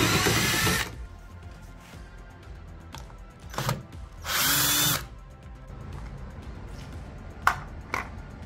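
Ryobi cordless drill running as it backs a screw out of a stair-lift track mount, stopping a little under a second in. A couple of seconds later the drill runs again briefly, for under a second, with a few light clicks before and after.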